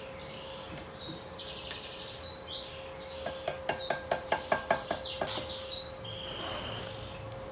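Small birds chirping repeatedly over a steady faint hum, with a run of about ten quick metallic taps a little past the middle, the loudest sounds here.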